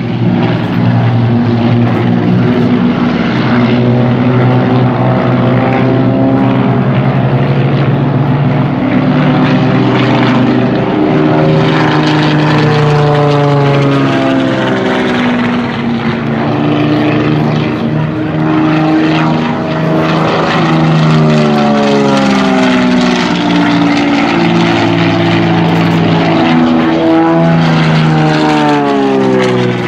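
Propeller aerobatic planes' piston engines droning overhead in a formation display. Several engine notes rise and fall in pitch as the planes climb, dive and pass.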